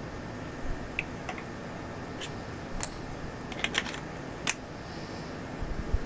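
Scattered small clicks and taps over a steady low hiss, the sharpest a brief metallic clink just under three seconds in, followed by a quick cluster of ticks.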